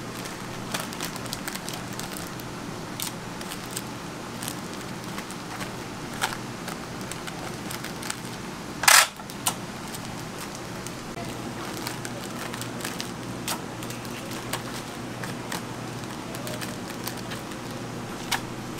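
Clear plastic bags crinkling and rustling as roll cakes are packed and the bag tops folded shut, with many small clicks and one louder rustle about nine seconds in. A steady electrical hum runs underneath.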